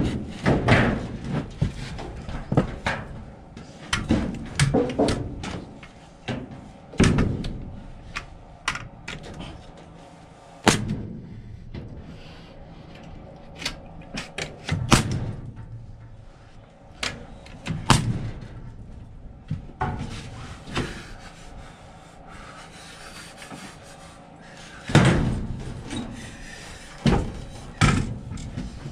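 Porter-Cable pneumatic nail gun shooting nails into a wooden block, sharp shots a second or a few seconds apart, mixed with knocks of the wood and tool being handled.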